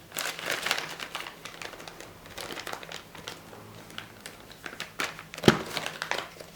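Plastic packaging of first aid supplies crinkling as it is handled, in irregular bursts, with one sharp knock near the end.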